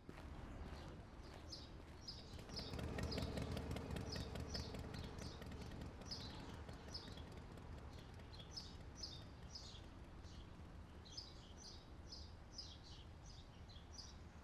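Small songbirds chirping, short falling notes repeated in runs about two a second, over a low steady outdoor rumble.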